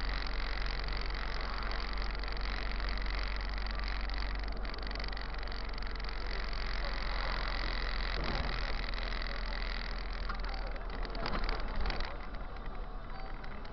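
City bus driving along, heard from the driver's cab: a steady low engine drone under road and cabin noise. A brief patch of knocks and rattles near the end.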